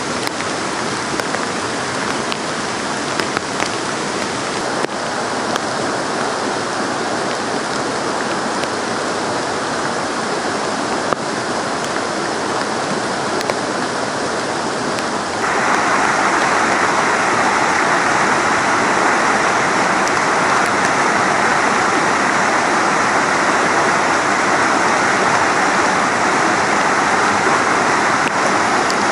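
Rain-swollen mountain river rushing steadily. About halfway through it abruptly becomes louder and brighter, as of faster white water.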